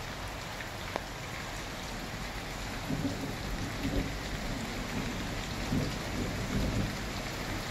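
Steady rain falls throughout during a thunderstorm. From about three seconds in, thunder rumbles low in uneven pulses.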